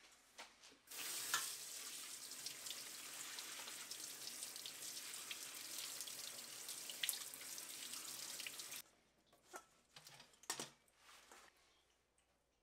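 Water running steadily, like a tap into a sink, for about eight seconds, then cut off suddenly, followed by a few light knocks.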